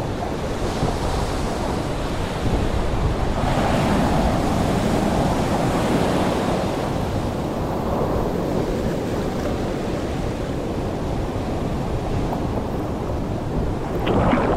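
Pacific Ocean surf washing and churning right around a camera held at the waterline, with wind buffeting the microphone. About 14 seconds in, a wave breaks against the lens with a sudden louder splash.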